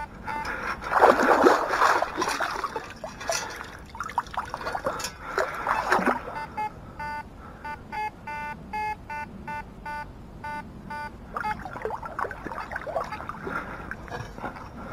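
Water splashing and sloshing in several bursts as someone wades and scoops in a lake's shallows. Between the splashes a metal detector gives a string of short, evenly repeated pitched beeps.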